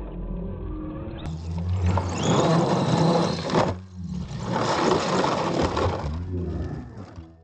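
Radio-controlled monster truck's motors whining as it lands and tumbles over on gravel, its tyres scraping and throwing loose stones in two long noisy spells with a short break between them. The motor pitch rises and falls near the end as the upside-down truck's wheels are spun.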